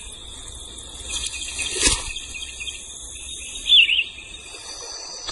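Birds chirping over a steady high-pitched background chorus. One louder chirp comes about four seconds in, and there is a short sharp click just before two seconds.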